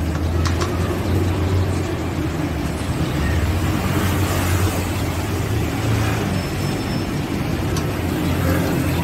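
Steady low rumble of road traffic, with a couple of light clinks from a ladle against a steel mixing bowl, about half a second in and again near the end.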